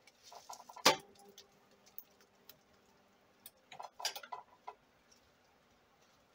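PFS-400 impulse heat sealer clamping bubble wrap: a sharp click as the arm is pressed down about a second in, then a faint steady hum for about two seconds while it is held closed. A cluster of clicks and crinkles about four seconds in.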